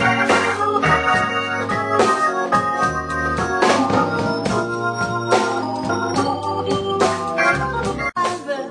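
Hammond organ playing an instrumental blues passage in sustained chords over low bass notes, backed by a drum kit with frequent cymbal and drum strokes.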